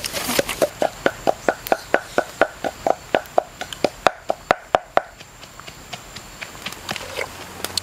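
Wooden pestle pounding in a wooden mortar: sharp, regular knocks about three a second that stop about five seconds in.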